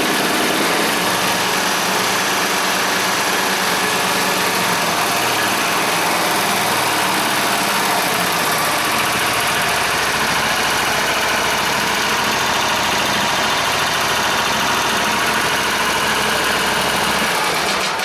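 Zero-turn riding mower's engine running steadily after start-up, then shut off at the end.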